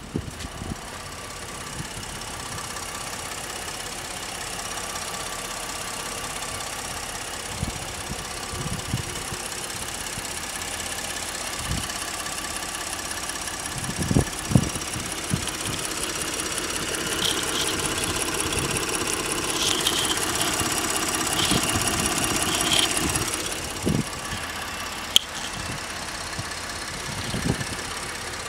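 A 2013 Ford F-150's 3.5-litre EcoBoost twin-turbo V6 idling steadily, with a few short low thumps.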